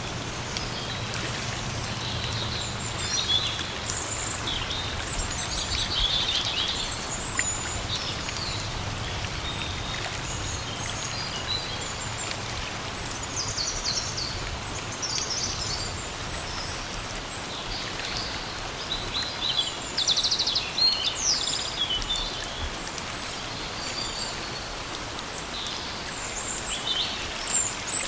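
Steady rain falling in a forest, an even hiss, with many small birds chirping and trilling over it.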